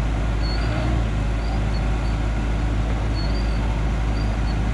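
Hyundai excavator's diesel engine running steadily, a continuous low drone, with faint short high chirps here and there.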